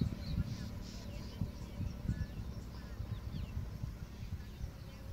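Small birds chirping faintly now and then over a low, uneven outdoor rumble.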